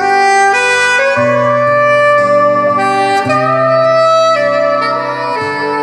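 Recorded instrumental music played through a pair of 1979 AIWA SC-61 vintage bookshelf loudspeakers: a held, slowly moving lead melody over bass notes that change every second or so.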